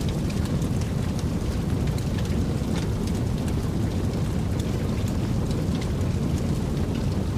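Fire burning with a steady low roar and frequent short, sharp crackles and pops scattered through it.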